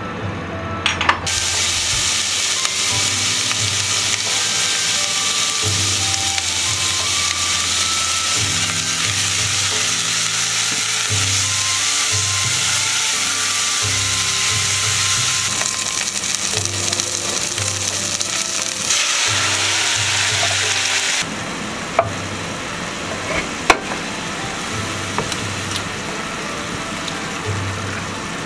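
Finely chopped onions frying in plenty of oil over high heat in a stainless steel pot: a steady sizzle that starts suddenly about a second in, then drops to a quieter sizzle with a few sharp clicks about two-thirds of the way through. Background music plays underneath.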